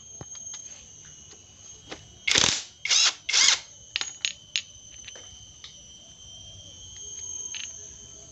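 Power drill-driver spinning in three short bursts about two to three and a half seconds in, backing out the bolts of a Honda Supra Fit engine's timing sprocket cover, with light metallic clicks of bolts and parts being handled.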